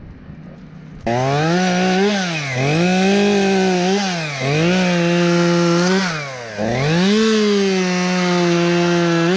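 Gas chainsaw starting up about a second in and running at high revs. Its pitch drops and recovers about four times as the throttle eases off or the chain bites into the wood.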